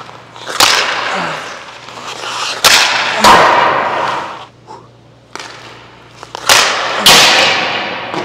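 Bauer Nexus League hockey stick firing one-timer shots on pucks: about five sharp cracks, some in pairs about half a second apart, each ringing out in the echo of the ice rink.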